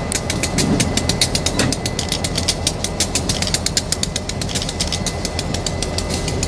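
Diesel locomotives running in the distance, a low rumble, under a steady rapid ticking of about six clicks a second.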